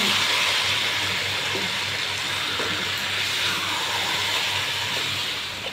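Chicken pieces and fresh tomato purée sizzling in a frying pan with a steady hiss as a wooden spatula stirs them together.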